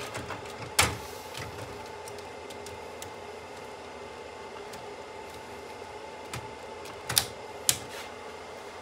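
Plastic SC/APC fiber optic connectors clicking as they are pulled from and pushed into the green adapter ports of a fiber distribution cabinet. There is a sharp click about a second in and two more close together near the end, with small ticks between and a steady faint hum underneath.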